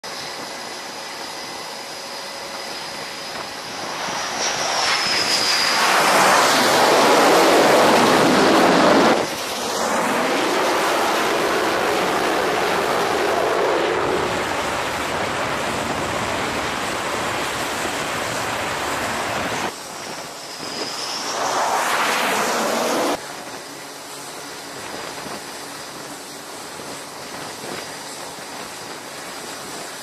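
F/A-18 fighter jet engines running loud on an aircraft carrier deck. The noise builds over a few seconds with a high whine that drops in pitch, stays loud for about fifteen seconds, then comes back for a second shorter stretch that cuts off suddenly. Before and after there is a lower steady wind-and-deck noise.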